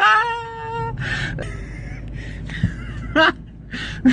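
Onlookers shouting: a long drawn-out yell held on one pitch in the first second, then more shorter shouts and calls, over a steady low rumble of street noise.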